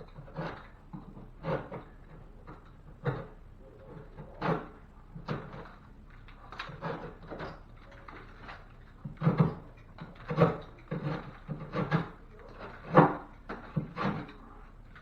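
Irregular knocks and bumps from handling drywall, wood and tools during ceiling patch work. The knocks come more often in the second half, and the loudest comes near the end.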